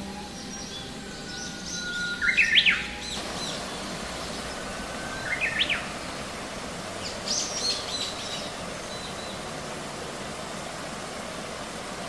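Songbird calling over the steady rush of a small stream cascading over rock. The song is a thin held whistle that breaks into quick rising notes, given twice about three seconds apart, then a brief burst of high twittering about seven seconds in.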